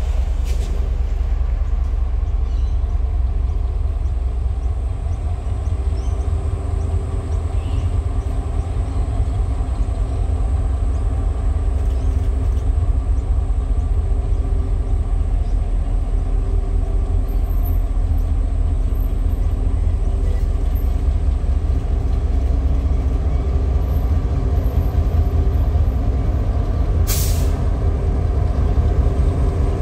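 Diesel-electric freight locomotives hauling a cattle train approach slowly and run up past the platform, giving a steady low engine rumble with a droning hum. A short sharp hiss sounds near the end.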